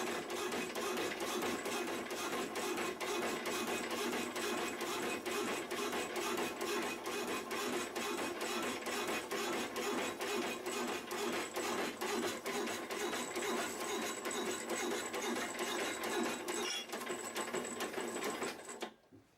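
Power saw running through a cut, with an even beat of about two to three clicks a second, then stopping suddenly near the end.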